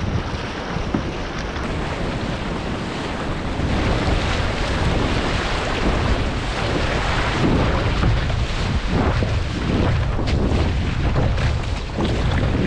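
Wind buffeting the microphone over the rush and splash of water along the hull and outrigger floats of a Hobie Tandem Island sailing kayak under sail. The noise steps up about four seconds in.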